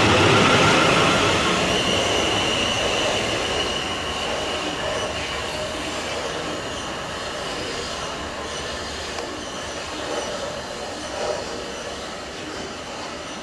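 A passenger train passing and moving away, loudest at the start and fading steadily, with a high steady whine over the first few seconds.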